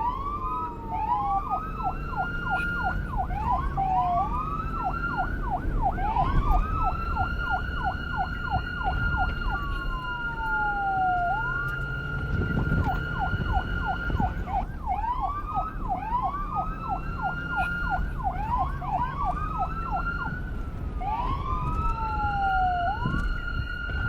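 Police car's electronic siren cycling through its modes: rising wails that level off into a long held tone, runs of fast yelps at about four a second, and a slow falling sweep near the start, in the middle and near the end. A low rumble runs underneath.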